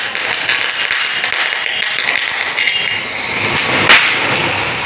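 Homemade fountain firework, an emptied sky-shot tube packed with crackers, sparklers and spinner fireworks, burning with a steady hiss of spraying sparks and rapid crackling. A sharp crack about four seconds in is the loudest sound.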